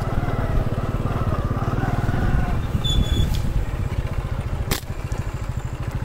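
Motorcycle engine running steadily with a fast, even pulse while riding, heard from on the bike. A single sharp click about three-quarters of the way through.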